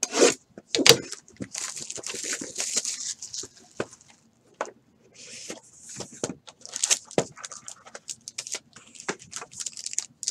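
Hands opening a 2017-18 Panini Encased basketball card box: stretches of rustling and crinkling from the wrapping and a silver foil pack, with several sharp clicks and taps as the cardboard box is handled on the table.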